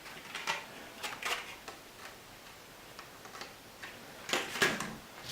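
Light clicks and taps of a laptop RAM module being handled at the open laptop's memory slot, a few scattered ones and then a louder cluster of clicks near the end.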